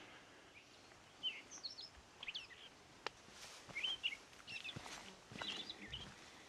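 A small songbird chirping: short, quick twittering calls repeated every second or so, with a few faint clicks.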